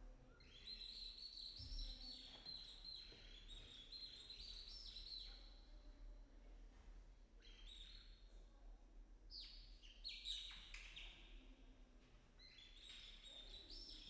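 Faint, many-voiced bird-like chirping and twittering, many short high chirps overlapping, as the boys' choir imitates birdsong to open the song. It thins out briefly about halfway through, then picks up again.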